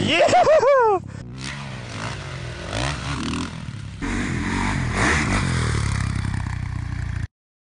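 Dirt bike engines revving and running in a string of short clips, the pitch swooping up and down sharply in the first second, with abrupt changes where the clips cut, and the sound cutting out suddenly near the end.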